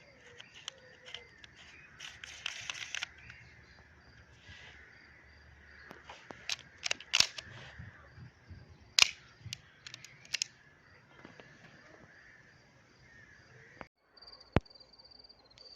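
Scattered sharp clicks and snaps at irregular intervals, a cluster around six to seven seconds in and the loudest about nine seconds in, over faint outdoor ambience with a thin high-pitched steady tone.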